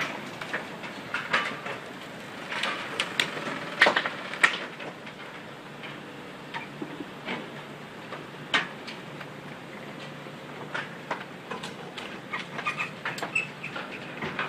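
Irregular sharp cracks, knocks and creaks of fibreglass motor yachts being crushed and ground against each other and the pontoons by the hull of a turning cement cargo ship, with the two loudest cracks about four seconds in.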